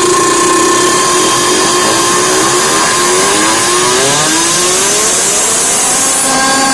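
Large DJ loudspeaker system playing a loud buzzing electronic tone for a sound check, breaking into a run of short rising sweeps about two and a half seconds in, then settling on a steady lower tone near the end.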